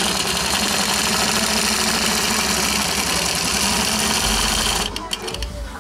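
Longarm quilting machine stitching steadily at speed along a ruler template, then stopping about five seconds in.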